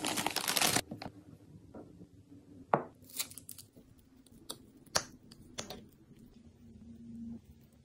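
Plastic bread bag crinkling for a moment at the start, then a small spreading knife clinking and scraping against a glass bowl while soft cheese is mashed, a few sharp taps a second or so apart.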